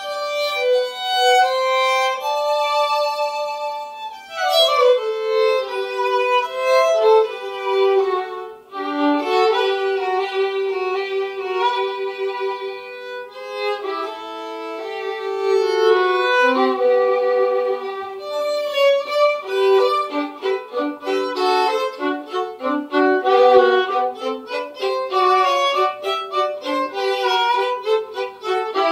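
Two violins playing a duet, a bowed melody that moves from held notes to shorter, quicker strokes in the second half.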